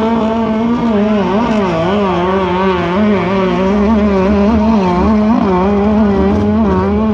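Racing boat engine running hard at high revs, its pitch wavering up and down repeatedly as the revs swing.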